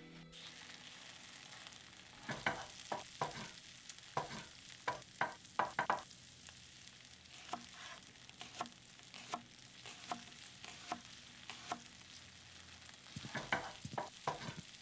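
Kitchen knife chopping green bell pepper on a plastic cutting board: sharp taps in short runs, with scattered single taps between, over a faint steady sizzle of food frying.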